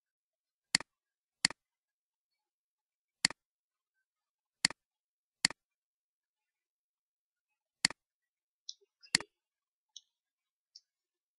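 Computer mouse button clicking: seven sharp, unevenly spaced clicks, with a few fainter ticks in the last couple of seconds.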